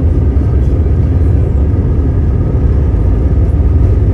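Airbus A320neo's CFM LEAP-1A engines at takeoff power, heard inside the cabin as a loud, steady rumble with a faint whine.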